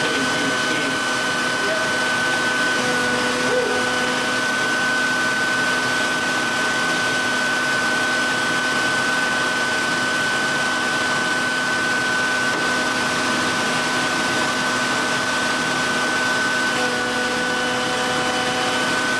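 Electric knife-sharpening machine running steadily, a motor whine over an even grinding hiss.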